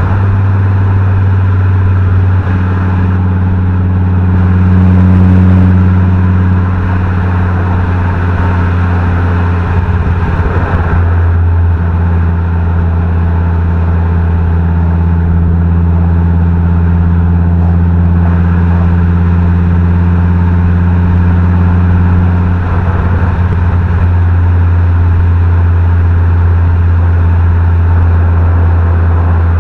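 Fiat Coupé 20V turbo's inline five-cylinder engine and exhaust running at steady revs: a loud, deep, even drone, its pitch shifting slightly about 3 seconds and 11 seconds in.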